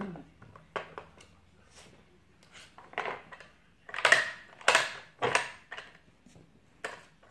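Hard plastic pieces of a Trixie Flip Board dog puzzle knocking and clattering as a Yorkshire terrier noses at the cones and flaps after treats: irregular clacks, louder and closer together from about four seconds in.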